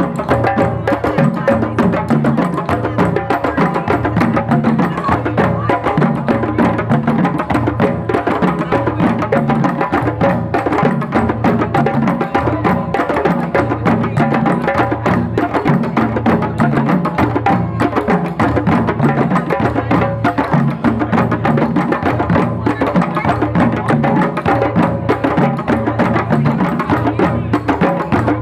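Live music with steady, fast percussion.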